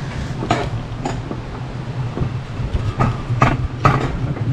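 Mountain coaster sled running along its metal rail track: a steady low rumble from the wheels, with about five sharp clacks.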